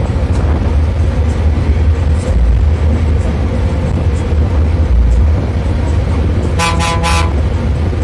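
Diesel bus engine running steadily under way, heard from inside the driver's cabin, with a short horn blast in three quick pulses about two-thirds of the way through.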